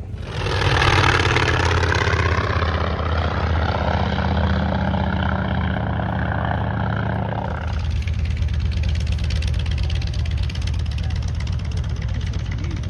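An engine running steadily, a low hum with a louder rushing noise over it that drops away suddenly about two-thirds of the way through.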